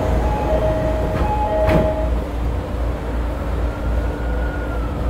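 E217 series train's door-closing chime, a repeating two-note tone, ending as the sliding doors shut with a knock about two seconds in. A faint rising and falling electric whine follows as the train starts to move, over a steady low rumble.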